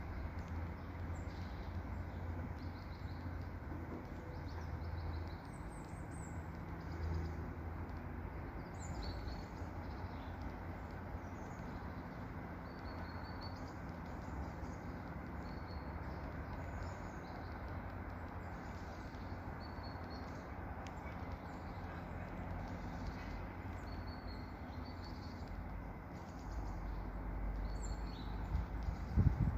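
Small songbirds chirping in short, scattered high calls over a steady low rumble. A couple of low thumps come near the end.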